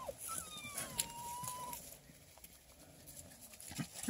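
Bluetick beagle puppy, six weeks old, whining: a short falling whine at the start, then a longer thin whine that slides down in pitch and levels off for about a second and a half.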